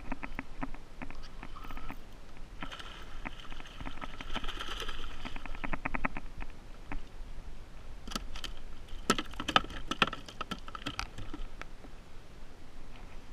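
A fishing reel ticking rapidly as a fish is wound in beside a kayak, then water splashing as the fish thrashes at the surface, followed by a burst of sharp knocks and clatter between about eight and eleven seconds as the fish is swung aboard onto the plastic kayak deck.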